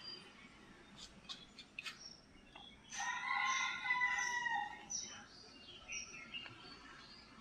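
A rooster crowing once, one long call of about two seconds that starts about three seconds in and is the loudest sound here. Before it come a few short sharp ticks from a marker on a whiteboard, and fainter bird chirps follow the crow.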